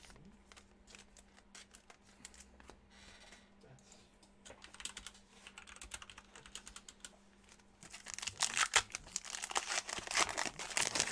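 Basketball trading cards being handled and flipped, with soft clicks of card against card, then about eight seconds in a louder crinkling and tearing as a card pack wrapper is ripped open.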